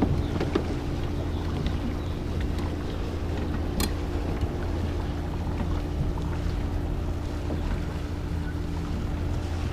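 A steady low motor hum with wind on the microphone, and a single sharp click a little under four seconds in.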